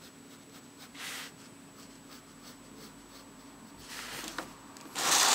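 Pen scratching on sketchbook paper in short, light strokes, then a much louder brief rustle near the end as the paper is shifted on the desk.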